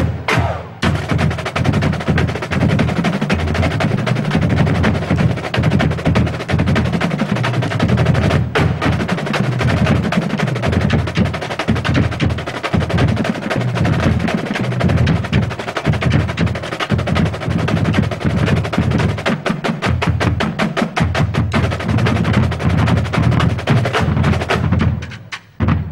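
Massed side drums and bass drums of a drum corps playing a fast, tight precision routine: dense rapid snare strokes and rolls over pulsing bass drum beats, breaking off sharply about twenty-five seconds in.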